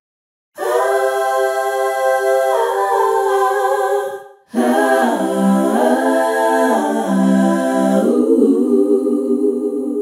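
A cappella voices singing held chords, humming-like and without words, in two long phrases with a brief break about four seconds in; the pitches shift together partway through each phrase.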